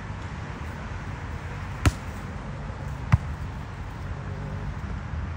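Two sharp slaps of a volleyball being struck by hand, about a second and a quarter apart, over a steady low background hum.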